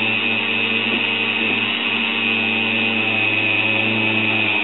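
Electric drill spinning a polishing mop against the rim of a glass inkwell, running steadily with a low hum and a high whine. The mop is loaded with coarse polishing powder, working down a chip in the glass.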